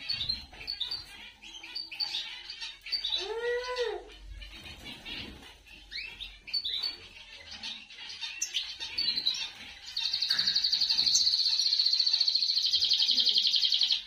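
Small caged finches, canaries and goldfinches, chirping, with one lower arching call a few seconds in. About ten seconds in, a loud, fast, even trill starts and carries on.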